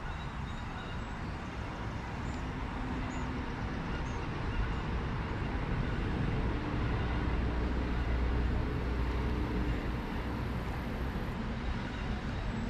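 Low rumble of road traffic, a motor vehicle's engine hum slowly growing louder.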